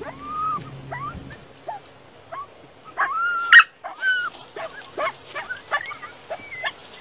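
A dog whining and yelping in about a dozen short, pitch-bending cries, the loudest and longest about three seconds in.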